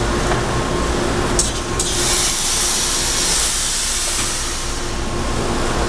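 Factory machinery on a steel-coil processing line running with a steady hum. Two sharp clicks come about a second and a half in, followed by a loud hiss lasting a few seconds.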